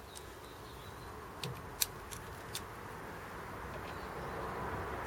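A few sharp, isolated clicks of a Torx bit and hand tool being worked against the door's lock mechanism, over a steady background hiss and rumble that slowly grows louder toward the end.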